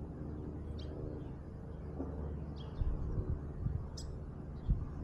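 Songbirds chirping briefly now and then, a few times, over a steady low rumble, with a few low thumps in the second half.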